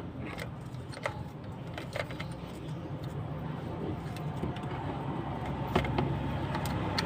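A car engine running steadily, its hum slowly getting louder, with scattered small metallic clicks and clinks.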